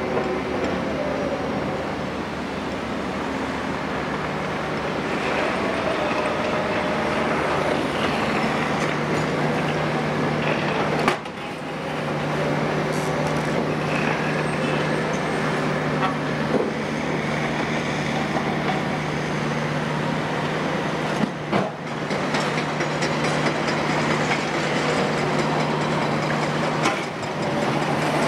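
Cat 352F hydraulic excavator's 15.2-litre Cat C15 ACERT six-cylinder diesel running steadily under load as it digs and swings rubble into tipper trucks. A few sharp knocks stand out, about eleven seconds in, again after twenty seconds and near the end.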